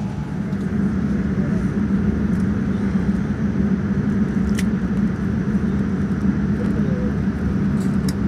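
Steady cabin hum and air rush inside a Boeing 787-9 parked at the gate, a low even drone, with a faint click about four and a half seconds in.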